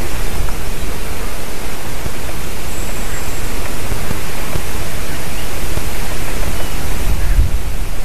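Wind buffeting an outdoor camera microphone: a loud, steady rushing hiss with gusty low rumble.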